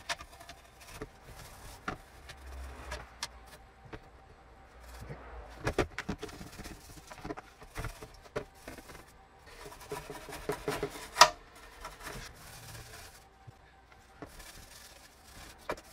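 Toothbrush scrubbing the wet plastic housing of a Hitachi TRK-3D2W cassette recorder in a basin of cleaning solution: irregular scratchy brushing strokes with small clicks and knocks of plastic, and one sharp knock about eleven seconds in.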